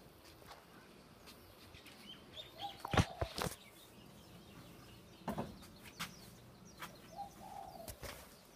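Birds calling, including the soft cooing of zebra doves, with a few high chirps. Several sharp knocks cut through, the loudest a cluster about three seconds in.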